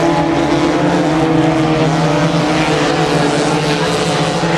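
Four-cylinder dirt-track race cars running laps, several engines droning together at steady revs with slight rises and falls in pitch as they go around the oval.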